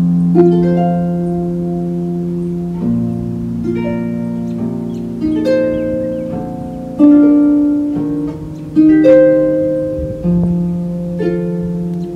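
Pedal harp playing slow, gentle music: plucked notes and chords that ring and fade, with the low notes sustaining under them.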